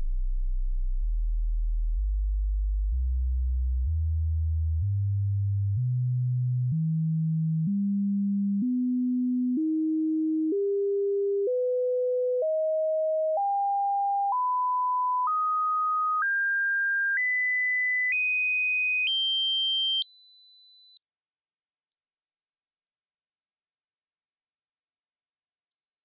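Stepped sine-sweep speaker test signal: a single pure tone holds steady at constant level, then jumps up in pitch about once a second. It climbs from a deep bass hum to a very high whistle and cuts off near the end. Any buzz or rattle heard along with it would point to a speaker or headphone fault.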